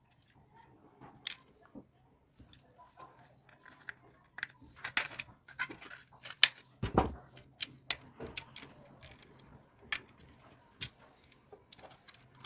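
Plastic case of a remote control being pried apart with a screwdriver: a scattered run of clicks and snaps as the clips give, thickest around the middle, with one dull knock just after it.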